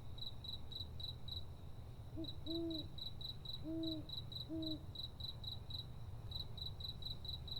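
A cricket chirping steadily in high, even pulses about four times a second, pausing briefly twice. Four short, low hooting calls, as from an owl, come between about two and five seconds in.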